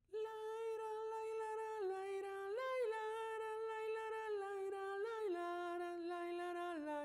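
A single voice humming the contralto line of a choral arrangement without words. It holds long, slow notes that step down and up, with a brief rise about two and a half seconds in and a lower note near the end.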